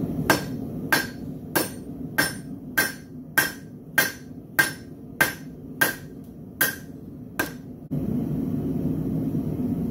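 Hand hammer forging a red-hot steel bar on the anvil horn: about a dozen even blows, a little over half a second apart, each with a short metallic ring. The blows stop after about seven and a half seconds and a steady low background rush takes over.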